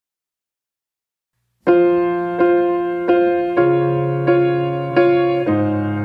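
Intro music on a piano-like keyboard: repeated chords, each struck and left to die away, about every two-thirds of a second over a bass line that shifts twice. It starts after about a second and a half of silence.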